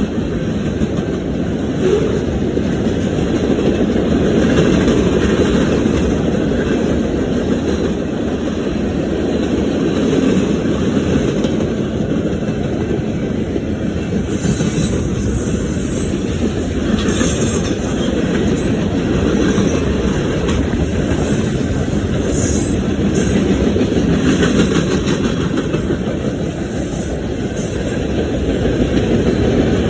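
Freight cars of a fast BNSF manifest train rolling past, a steady rumble of steel wheels on rail with clickety-clack over the rail joints.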